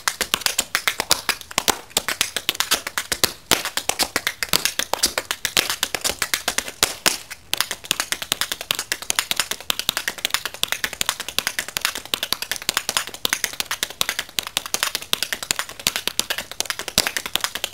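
Tap shoes on concrete: a fast, dense run of sharp taps, several a second, barely pausing.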